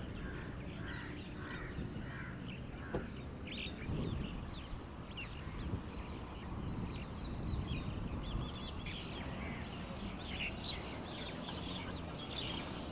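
Many birds calling at once: a scatter of short, high chirps and calls throughout, over a steady low background rumble.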